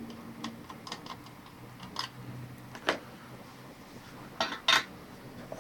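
Small metal hand tools clicking and tapping against the board and bench during solder rework: scattered light ticks, a couple of sharper clinks about two and three seconds in, and a quick double clink near the end.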